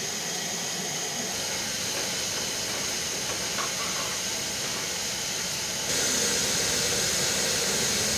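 Potato chips frying in oil in an aluminium pan over a portable gas-cylinder burner: a steady hiss and sizzle, louder from about six seconds in.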